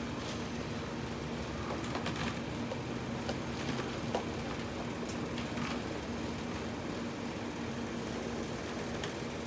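A steady machine hum, with a few light clicks of metal tongs on a grill griddle as grilled potato slices are lifted off.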